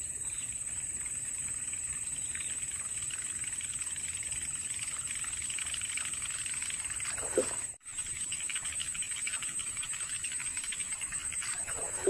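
A topwater lure is reeled across the surface of the water, spluttering in a fast, steady rattle of tiny splashes. A steady high-pitched whine runs over it. A short plop comes about seven seconds in, and another comes right at the end.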